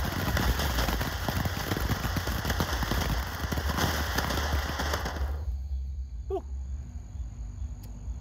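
Ground fountain firework spraying sparks with a dense hissing crackle, which cuts off abruptly about five seconds in.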